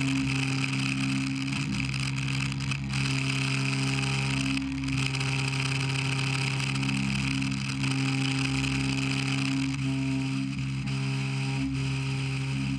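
Instrumental background music laid over a Maho MH 600 E CNC milling machine running steadily as it cuts a metal block, with a constant machine hum and cutting hiss underneath.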